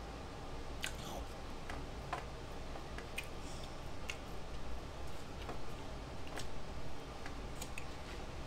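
Close-miked eating sounds: scattered sharp wet clicks and lip smacks of chewing, about one every second, over a low steady hum.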